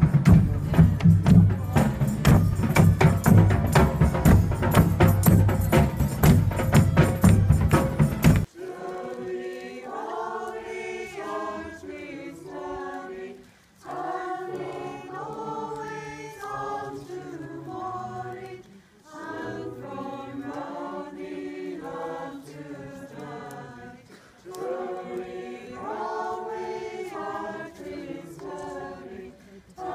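Loud drumming and music from a street procession for the first eight seconds or so. It cuts off suddenly and gives way to a small choir singing in phrases, with short pauses between them.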